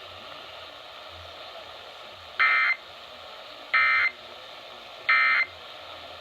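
Emergency Alert System end-of-message data bursts: three short, identical digital screeches about 1.3 seconds apart, sent by a broadcast station to close its monthly test. They play over steady radio hiss.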